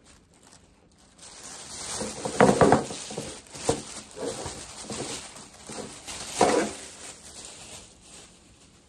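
Thin plastic shopping bag rustling and crinkling as it is rummaged through and items are pulled out, irregular and louder about two and a half seconds in and again about six and a half seconds in.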